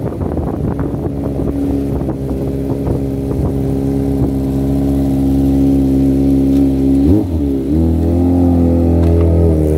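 Kawasaki Ninja sport bike with an aftermarket Yakuza exhaust running at low speed, its exhaust note steady. About seven seconds in the pitch briefly dips and rises, then settles into a deeper, louder low rumble.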